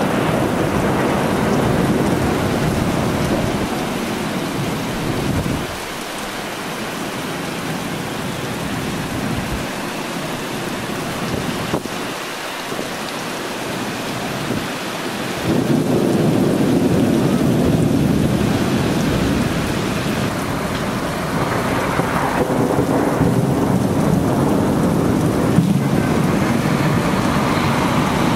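Heavy rain falling steadily with rolling thunder. A deep rumble fades out about six seconds in, and another starts suddenly about fifteen seconds in and rolls on to the end.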